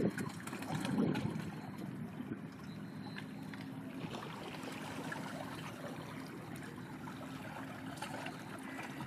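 Sea water lapping and trickling, with gusts of wind buffeting the microphone in the first second or so and a faint steady low hum underneath.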